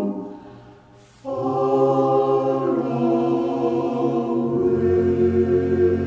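Background music of slow, sustained choir-like chords. One chord fades out in the first second, and a new passage comes in sharply just after a second, its chords changing every couple of seconds.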